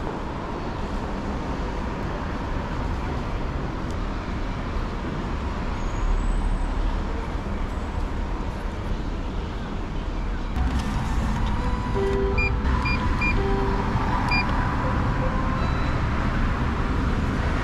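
Steady street ambience with traffic noise and a low rumble. From about twelve seconds in, a few short electronic tones sound in quick succession.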